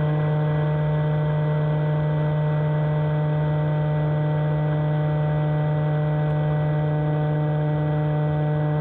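Steady electric motor hum of an RC bait boat running at constant speed, heard from on board the boat: an even, unchanging drone of several fixed pitches.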